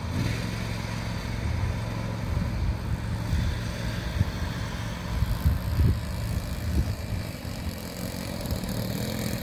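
OS FS-120 single-cylinder four-stroke glow engine of a radio-controlled Bonanza model idling steadily as the plane taxis on grass after landing. A few low thumps come near the middle.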